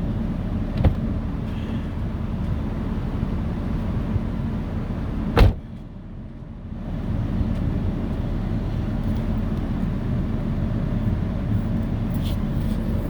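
Steady low vehicle hum, with a light click a little under a second in and a sharp click about five seconds in. After the sharp click the hum drops away for about a second and a half, then returns.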